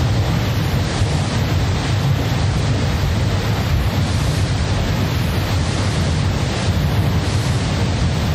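Experimental noise piece: a loud, steady, dense rush of noise with a heavy low rumble beneath it, unchanging throughout.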